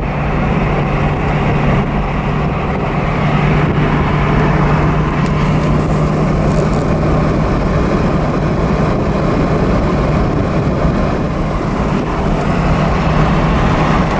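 Chevrolet C5 Corvette's V8 running steadily while cruising, a constant low drone under road and wind noise coming in through the open targa roof.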